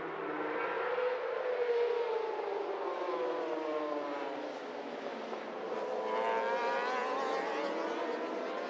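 A pack of superbike racing motorcycles accelerating hard from the race start, many engines revving at once. Their pitch climbs about a second in, sinks over the next few seconds, then climbs again about six seconds in.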